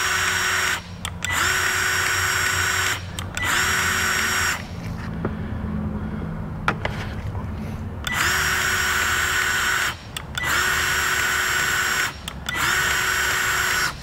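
Milwaukee cordless grease gun's motor running in repeated bursts of one to two seconds, a steady whine, with a pause of about three and a half seconds midway broken by two light clicks. The gun is out of grease, so it runs without pumping any into the cone bearing packer.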